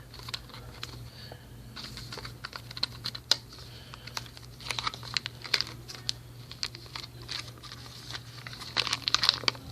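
A small SSD and its plastic packaging being handled: irregular light clicks and crinkling plastic, busiest around the middle and near the end. A steady low hum runs underneath.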